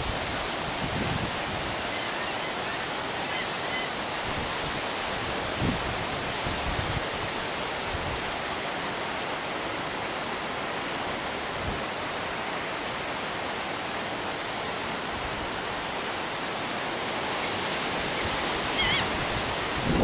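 Steady rush of wind and choppy water on the open sound as a storm moves in, with a few short gusts buffeting the microphone.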